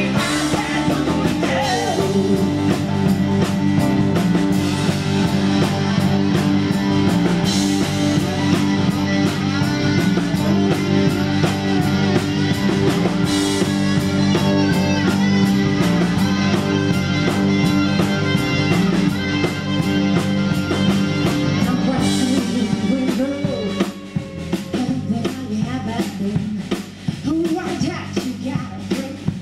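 Live country band playing amplified electric guitars over bass and drums. The music drops to a quieter, sparser passage near the end.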